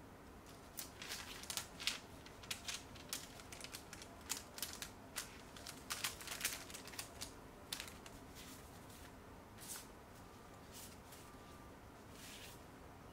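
Paper and a clear plastic sleeve rustling and crinkling under hands, in a quick run of crisp rustles for the first several seconds, then only a few scattered ones.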